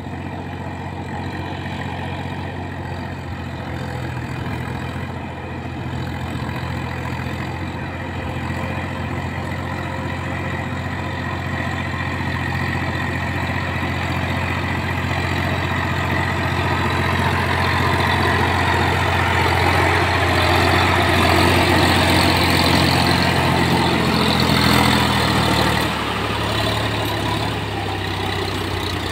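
Solis 5012E tractor's diesel engine pulling a trailer through deep paddy-field mud, running steadily and growing louder as it approaches. A little before the end the engine note drops and the sound eases.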